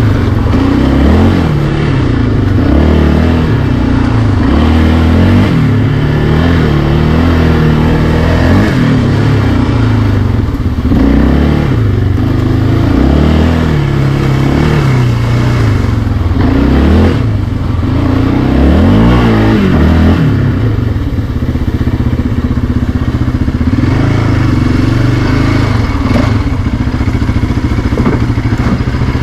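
ATV engine being ridden, its pitch rising and falling again and again as the throttle is worked.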